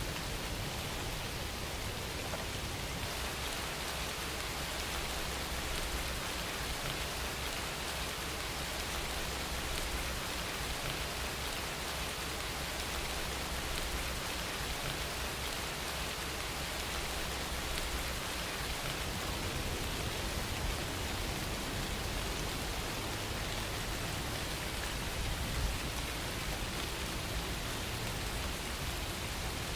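Steady rain falling, an even hiss of many drops with no breaks, and one slightly louder patter about twenty-five seconds in.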